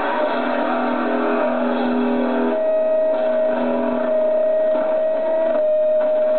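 Noise rock band playing live: a loud, dense wash of distorted guitars, bass and drums. About two and a half seconds in, a single high note comes in and is held steadily through the rest.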